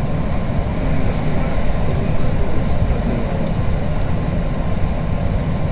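Running noise of an electric commuter train heard from inside the passenger car: a steady low rumble.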